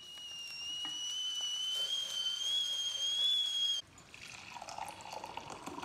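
Stovetop kettle whistling, a steady high tone that grows louder and rises slightly, cut off abruptly after nearly four seconds. Then coffee is poured from a French press into a mug.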